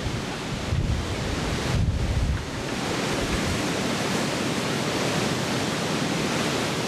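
Storm-force wind blowing steadily, with two gusts buffeting the microphone about one and two seconds in.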